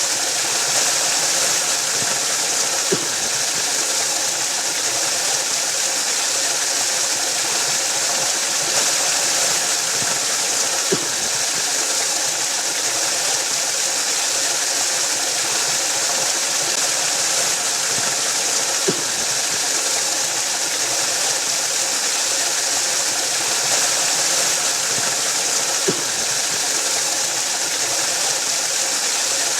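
Waterfall rushing in a steady, hissy roar that never changes in level. A short click cuts through four times, about every eight seconds.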